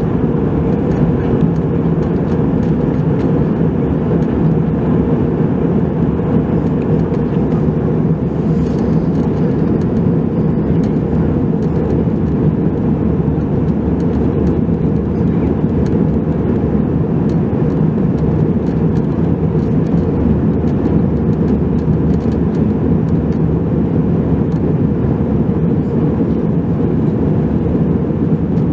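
Steady cabin noise of an Airbus A320-200 in climb, heard from inside the cabin: a constant low roar of engines and airflow.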